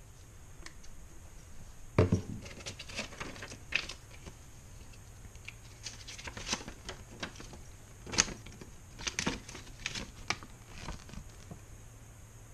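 Unboxing handling noise: a cardboard box and its insert knocked and slid, and a folded paper instruction leaflet rustling as it is opened out. Two sharp knocks, about two seconds in and about eight seconds in, are the loudest sounds.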